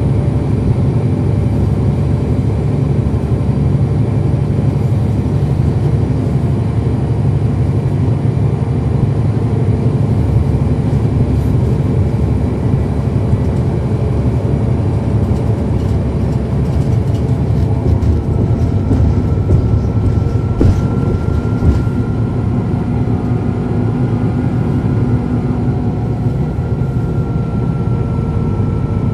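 Cummins ISL9 diesel engine of a NABI 40-ft transit bus, heard from on board with a steady drone as the bus runs. A thin high whine joins about two-thirds of the way in.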